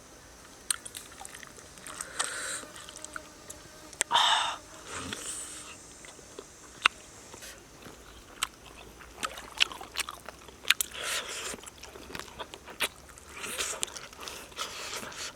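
A person eating steamed frog meat: chewing and lip-smacking, with many sharp clicks and short wet crunches scattered at irregular intervals.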